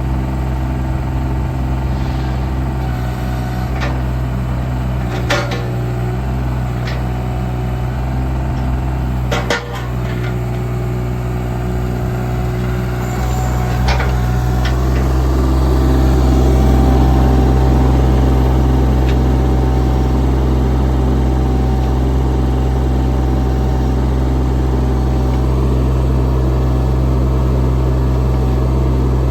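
JCB 18Z-1 mini excavator's diesel engine running steadily, with a few sharp clanks, the loudest about nine and a half seconds in; the engine gets a little louder a little over halfway through.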